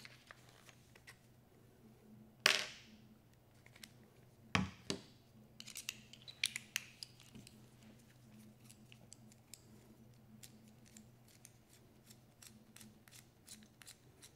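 Small metal parts of an FX Panthera air rifle's cocking assembly being handled: a sharp click about two and a half seconds in and another about two seconds later, then a run of light ticks and clicks as a 2.5 mm Allen driver works at the handle.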